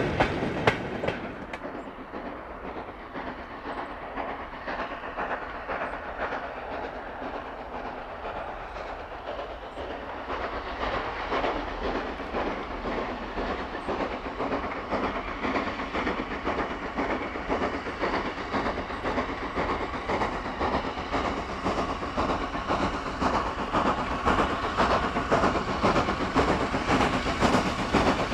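Wagon wheels of a goods train clicking over rail joints as it moves away, fading within the first couple of seconds. Then the exhaust beats of Austerity 0-6-0 saddle tank No. 22 hauling coaches, a steady rhythmic chuffing that grows steadily louder as the engine approaches, working hard.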